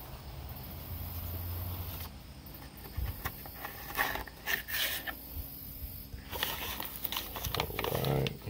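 Plastic zip-top bags of gravelly paydirt being handled: scattered rustling and small clicks, busier in the second half.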